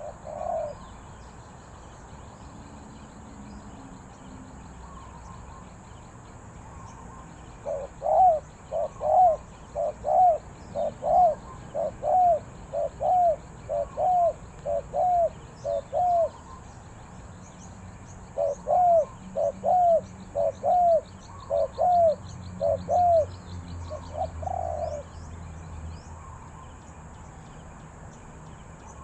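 Spotted dove cooing in two long runs of short, arched coos, about two a second, separated by a pause of a couple of seconds. A faint, high, rapid trill runs in the background.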